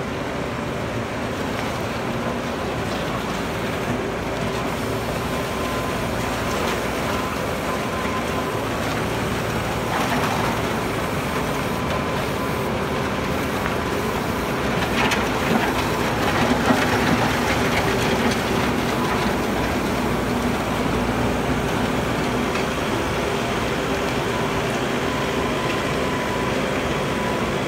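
Bobcat A770 loader's diesel engine running steadily under load while it grades gravel with a grader attachment, with a faint steady whine. The sound grows a little louder and rougher for a few seconds about halfway through.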